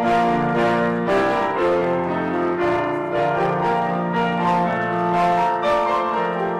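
Grand piano played slowly, held chords ringing on while new notes are struck every second or so.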